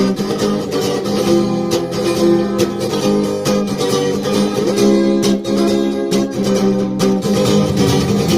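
Acoustic guitar strummed in a steady rhythm, the closing instrumental of the song after the last sung line.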